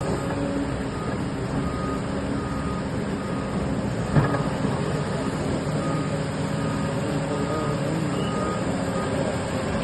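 Heavy demolition machinery engine running steadily, with a reversing alarm beeping at an even pace and one sharp knock about four seconds in.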